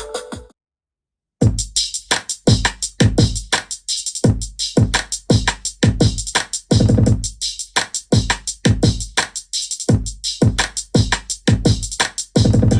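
Drum-machine-driven music played through a Zealot portable Bluetooth speaker, with a strong, fast beat; the sound cuts out completely for about a second near the start, then the beat comes back in.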